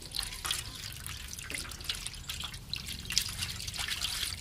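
Water trickling from a glass into a steel plate while a hand swishes it through thick spice paste: irregular splashing and wet squelching as the masala is dissolved into a liquid.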